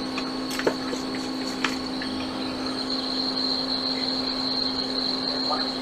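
Steady hum of running repair-bench equipment, with a low tone and a high whine held throughout. Two light clicks come in the first two seconds as the board and soldering iron are handled.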